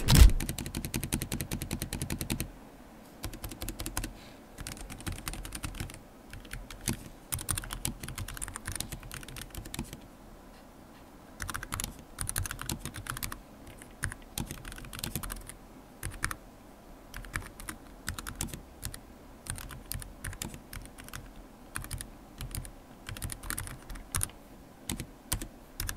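Typing on an Ajazz AKP815 mechanical keyboard with red linear switches. A fast, dense run of keystrokes in the first two or three seconds, then uneven bursts of keystrokes.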